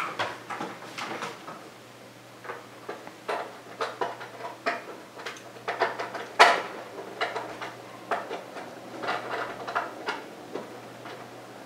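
A dual-link DVI cable and its connector being handled, unplugged and plugged into the back of a monitor: a run of irregular small knocks, clicks and rattles, the sharpest about six and a half seconds in.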